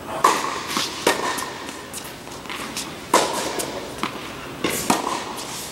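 Tennis ball struck by rackets and bouncing on a hard court during a rally, sharp pops that echo in a large indoor tennis hall. The loudest hits fall at the start, about a second in, just past halfway and near the end.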